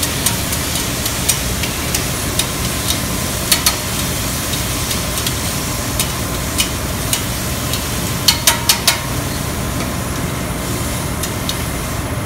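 Metal tongs clicking and tapping against a steel flat-top griddle as roasted tomatoes are turned on it, with a quick run of four taps about eight seconds in. Faint sizzling runs over a steady rushing background noise.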